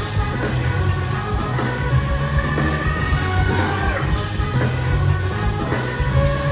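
Live hip-hop band playing an instrumental groove: drums and bass guitar with held melody lines from horns or keys over the top.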